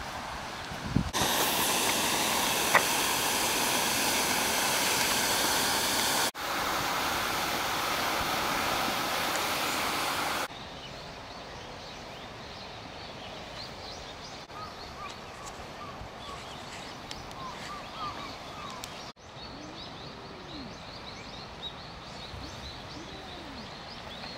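Outdoor ambience. A loud, steady rushing hiss fills the first ten seconds or so, broken once near the middle, and then drops away abruptly. After that comes quieter open-air background with faint, scattered short chirps.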